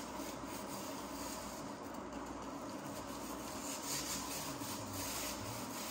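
Stiff tire brush scrubbing a tire's rubber sidewall and rim edge in repeated strokes, over a steady hiss. The brush is working in an acidic tire cleaner to strip old silicone dressing off the rubber.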